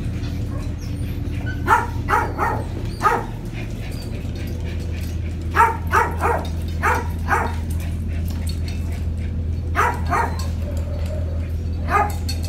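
Dogs barking: about a dozen short, sharp barks in groups of two to five, over a steady low hum.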